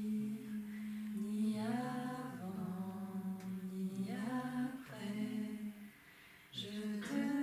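Unaccompanied singing of a slow song, with long held notes that step slowly between pitches. There is a short breath pause about six seconds in, and then the singing comes back fuller.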